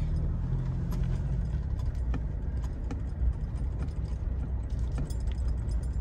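Pickup truck cabin noise while driving slowly over a rough dirt road: a steady low engine and road rumble with small rattles and knocks as the vehicle shakes.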